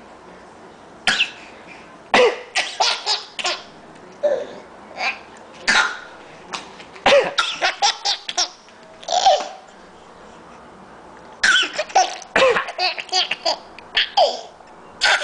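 A young child laughing in bursts of short, coughing giggles, his laugh coming out as coughs, with brief quiet pauses between the bursts.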